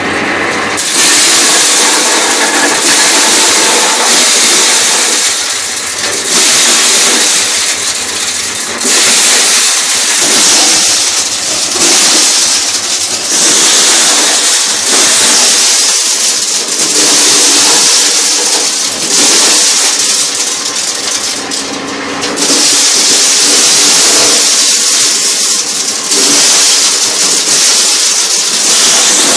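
Electric-motor-driven mini corn sheller (PPJ-03) running while shelling ears of corn, a loud, continuous rattling clatter that rises and falls every few seconds.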